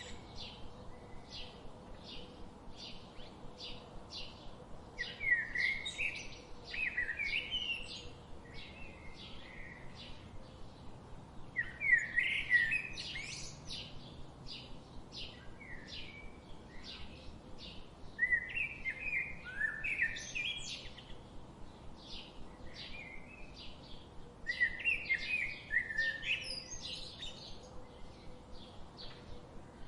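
Songbirds singing. A steady, rapid series of short, high chirps goes on throughout, and louder warbling song phrases come in at intervals of about six seconds.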